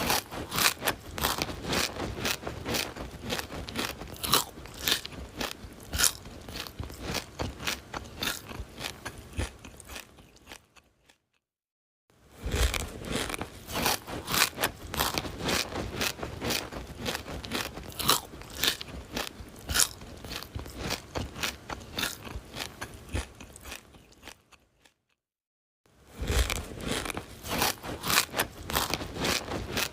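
A person biting and chewing crunchy food: dense, irregular crunches and crackles, broken by two brief silences, about eleven and twenty-five seconds in.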